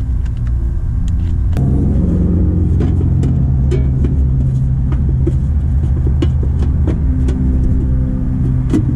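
Steady low hum that thickens abruptly about a second and a half in, with scattered light clicks and knocks from the condenser's sheet-metal access panel being handled.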